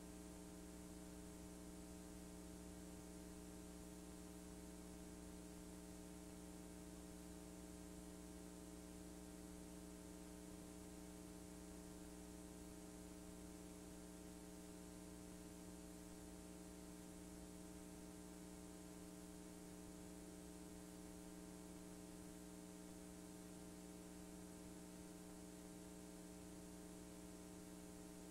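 Near silence: a faint, steady electrical hum with hiss, the playback and capture noise of a blank stretch of VHS-C tape.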